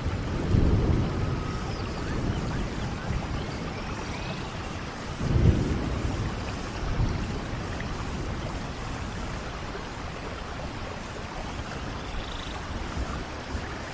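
Rainforest thunderstorm: steady heavy rain with two rolls of low thunder, one about half a second in and a louder one about five seconds in, the storm easing off towards the end.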